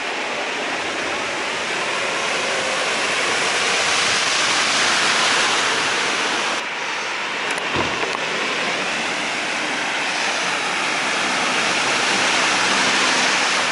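Flash-flood water rushing across a road, with cars driving through it and their tyres throwing up spray. The splashing swells about four seconds in and again near the end.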